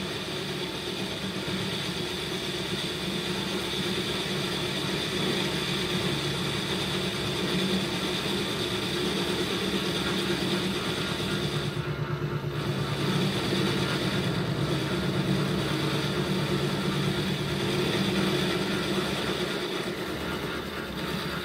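Metal lathe running, its chuck spinning a conveyor rotator body while a carbide tool cuts the old weld out of the bore end: a steady machine hum under a higher cutting hiss. The cutting hiss briefly breaks off about twelve seconds in.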